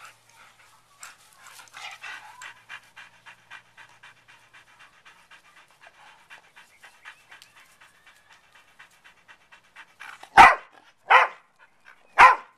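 Dogs panting quickly during rough play, about five breaths a second, then three short, loud barks near the end.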